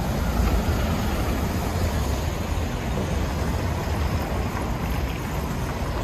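Road traffic on wet cobblestones: a city bus passing close, then cars driving by, a steady noise of tyres on the wet stones. A low wind rumble on the microphone runs underneath.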